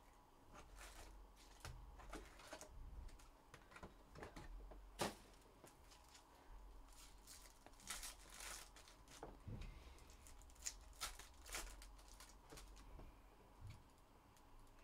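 Faint handling of baseball trading cards: a scattered series of short, sharp flicks and rustles as cards are slid and flipped, the loudest about five seconds in.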